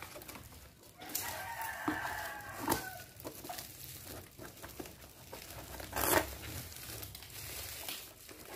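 A rooster crows about a second in: one drawn-out call lasting about a second and a half. Under and after it, the plastic wrapping of a parcel crinkles as it is opened, with a sharp crackle about six seconds in.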